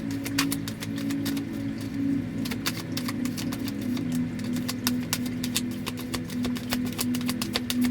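Tarot cards being shuffled and handled, many quick irregular clicks and flicks, over a steady low drone of background music.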